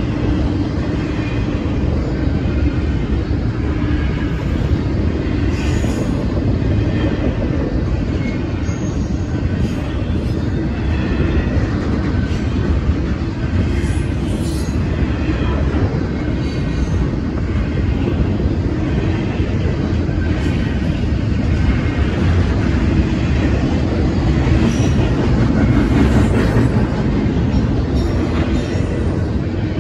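Double-stack intermodal container train rolling past: a loud, steady rumble of the well cars' wheels on the rails.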